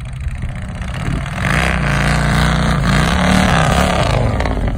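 Chopper motorcycle engine revving hard while the rear wheel spins in loose dirt. The engine climbs from about a second in, its pitch rising and falling through the revs, and drops back near the end.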